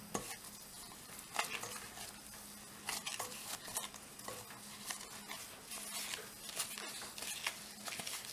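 Gloved hands kneading crumbly cottage cheese dough in a glass bowl: plastic gloves crinkling and dough squishing, with irregular crackles and a few sharp clicks.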